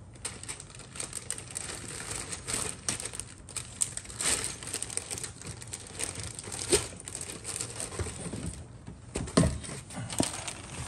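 Clear plastic bag around a plastic model kit's sprues crinkling as it is handled, with a few sharper knocks of plastic parts, the loudest about two-thirds through and near the end.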